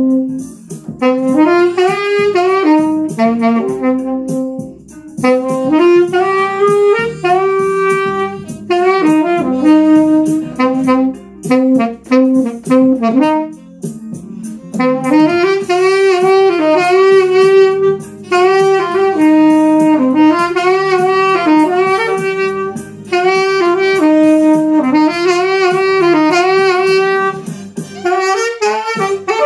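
Mendini by Cecilio nickel-plated B-flat tenor saxophone playing a solo melody in phrases, with short pauses between them.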